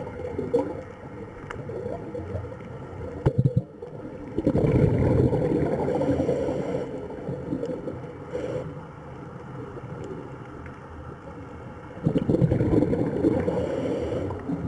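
Water sloshing and gurgling in uneven surges, with quieter stretches between them and a few sharp knocks about three seconds in.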